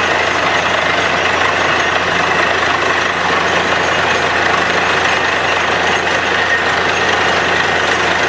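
Truck-mounted borewell drilling rig running steadily under load while muddy water gushes up out of the bore around the drill pipe. The result is a loud, even rushing noise over a low, constant hum.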